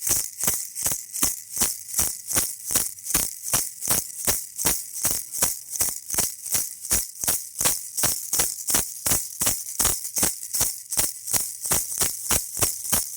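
Baby rattle shaken steadily in an even rhythm, about three shakes a second, each shake a bright, hissy rattle of small beads.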